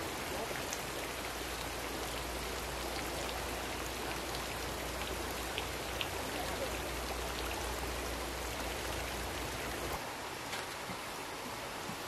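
A steady, even hiss of outdoor background noise with a few faint clicks around the middle. It drops slightly about ten seconds in.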